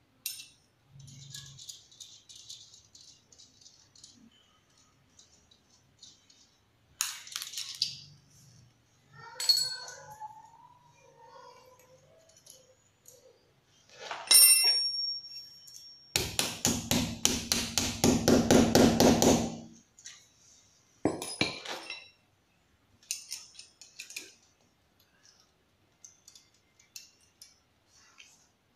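Metal clinks and rattles of a ring spanner and dynabolt nuts and washers being worked at a wall, with one sharp ringing clink about halfway through. Right after it comes a few seconds of fast, rhythmic clattering, the loudest sound here.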